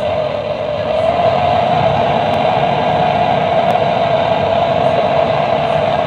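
Handheld gas-canister torch burning with a steady, loud hissing rush while brazing copper refrigerant pipe onto a refrigerator compressor.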